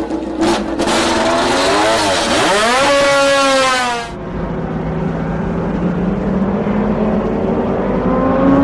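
MotoGP racing motorcycle engine at high revs, its pitch dipping and then climbing steeply as it accelerates. Just after four seconds the sound cuts abruptly to a duller, lower engine note that slowly rises again.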